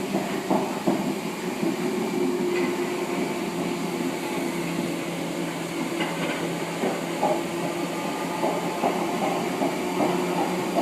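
Merseyrail electric train running at speed, heard from inside the carriage: steady rumbling running noise with a low steady hum and occasional clicks from the wheels over the rails.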